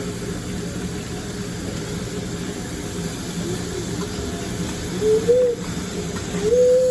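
Steady restaurant background din with a low hum, broken by two short hooting tones, one about five seconds in and a longer one near the end.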